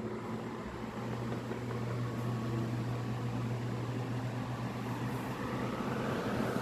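Arno 40 cm desk fan running steadily with a smooth, even motor hum and airflow, on new bushings and a new capacitor after a slow-running, noisy-coil fault.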